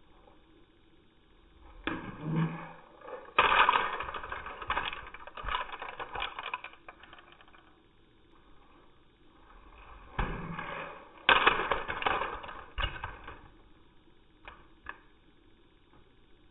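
LEGO cars crashing into a row of parked LEGO cars on carpet, twice: each time a short rumble of a car rolling in, then a sharp impact about three and a half seconds and about eleven seconds in, with plastic bricks rattling and scattering. A few faint clicks of loose pieces follow near the end.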